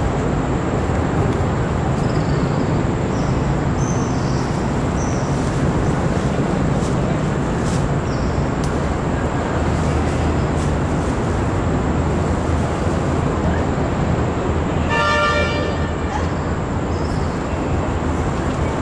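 Steady low rumble of distant road traffic, with one brief horn toot about fifteen seconds in.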